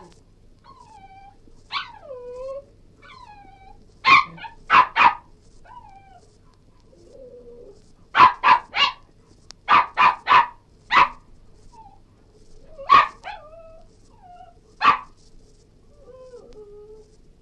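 Cairn terrier whining in short falling whimpers, broken by sharp barks and yelps: three in quick succession about four seconds in, a run of about seven between eight and eleven seconds, then single barks later on.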